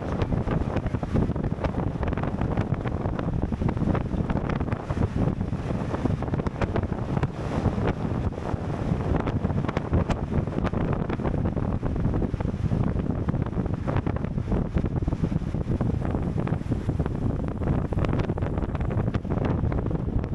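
Wind buffeting the microphone of a camera mounted on a racing bicycle at speed: a steady rushing rumble with no pauses.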